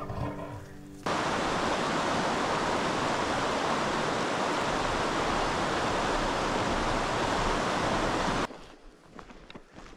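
Mountain creek rushing over rocks: a steady, loud wash of water that starts abruptly about a second in and cuts off near the end. It follows the fading tail of intro music.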